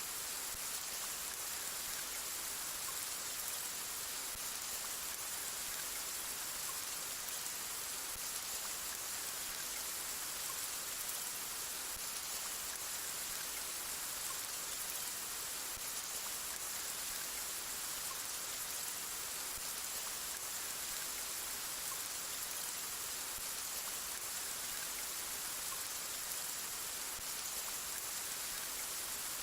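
Steady rain falling, a dense, even hiss of drops that holds level throughout, with no thunder.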